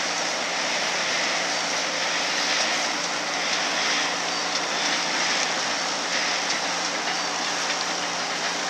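Sailboat's motor running steadily, with a faint steady hum under a constant rushing hiss of wind and water.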